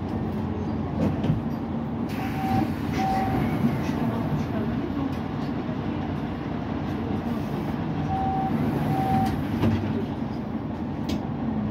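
Mercedes-Benz Citaro C2 city bus with its OM936 diesel engine running, a steady low drone with light rattles. Two pairs of short beeps sound, one about two and a half seconds in and another about eight seconds in.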